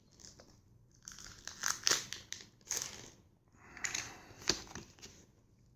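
Foil wrapper of a Pokémon TCG booster pack being torn open and crinkled by hand, in a run of rustling bursts lasting about four seconds.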